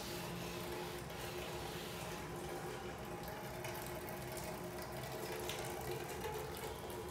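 Steady background hiss with a faint, even hum underneath: room tone, with no distinct event.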